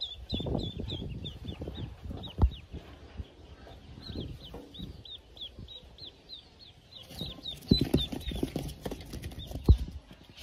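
Newly hatched Pekin ducklings peeping in quick runs of short, high, downward-slurred calls. Handling rustles sound underneath, with two sharp knocks.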